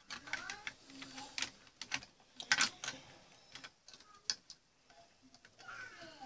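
Plastic Lego bricks clicking and rattling as they are handled and pressed together: an irregular run of sharp clicks, the loudest about two and a half seconds in.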